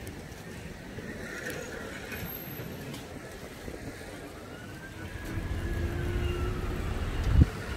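City street traffic. A vehicle passes close and grows louder in the second half, and a short, sharp thump comes near the end.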